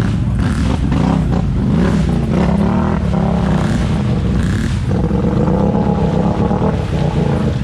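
ATV engine running under throttle, its pitch rising and falling, with a change in note about five seconds in.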